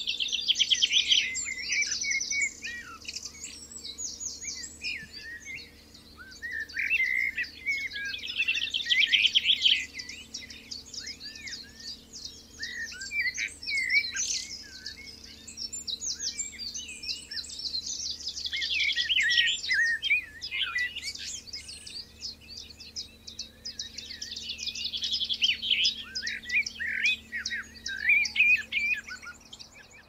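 Dawn chorus: several songbirds singing at once, with overlapping chirps and fast trilled songs that swell and fade in waves every several seconds.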